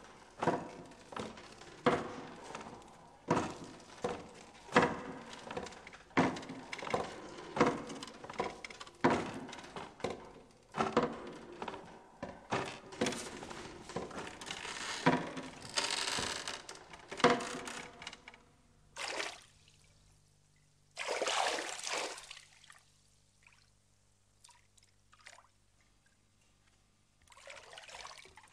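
Water splashing and sloshing, a sharp splash about once a second, then a couple of longer pouring rushes and a few faint drips near the end.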